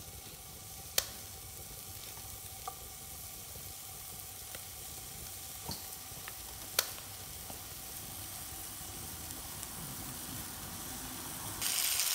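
Marinated yakiniku meat sizzling in a nonstick frying pan over a wood-fired rocket stove, a steady hiss with a few sharp clicks. The sizzle jumps louder near the end as the pan fills with more pieces.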